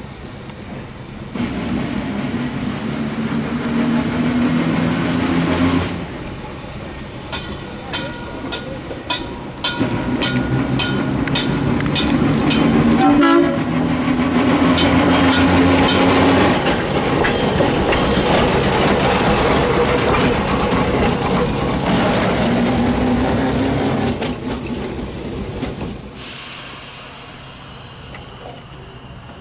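Electric interurban trolley car, TMER&L 846, sounding its horn in several long blasts. In the middle there is a rapid, even clicking of its wheels over the rail joints, about three clicks a second. A faint high squeal follows near the end.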